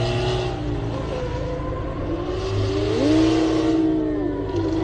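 Car engine revving under acceleration, its pitch sweeping up about three seconds in and dropping back a second later.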